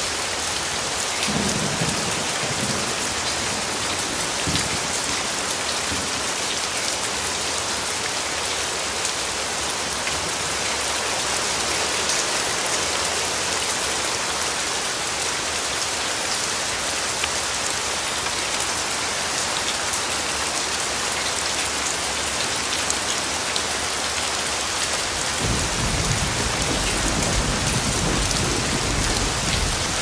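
Steady rain falling. Near the end a low rumble of thunder comes in and keeps going.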